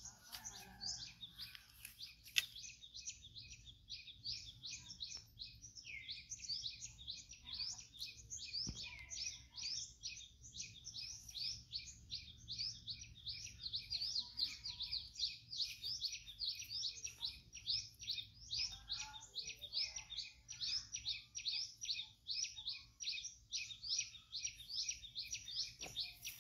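Many small birds chirping in a dense, continuous chorus of rapid high chirps.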